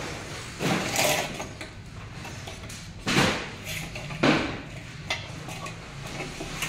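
Hand punch pliers being squeezed on aluminium window profile, giving sharp metallic crunches and clanks, three loud ones about a second, three seconds and four seconds in.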